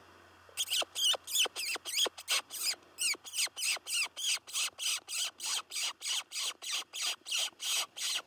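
Predator call playing mouse squeaks to bring in a coyote: a steady run of high, short squeaks, each sliding downward, about three a second, starting about half a second in.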